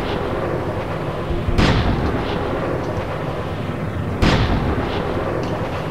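Two heavy booms about two and a half seconds apart, each dying away in a long rumbling tail over a steady dense rumble.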